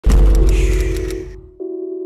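Intro music: a deep bass boom under a held synth chord that fades away over about a second and a half. A softer, steady synth chord of a few pure tones comes in near the end.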